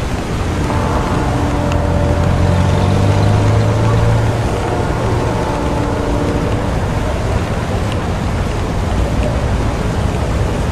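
Steady rain falling, with a motor vehicle's engine hum swelling in about a second in, peaking for a few seconds and fading out about two-thirds of the way through.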